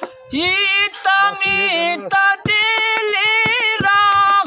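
An elderly man singing a Bhojpuri nirgun devotional folk song unaccompanied, drawing out long wavering vowels between lines of the verse. A light steady clicking keeps time under the voice.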